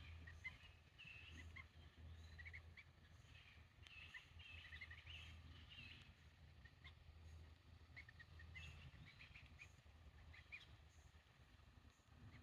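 Pilgrim goslings peeping faintly: many short, high calls scattered throughout, over a low steady hum.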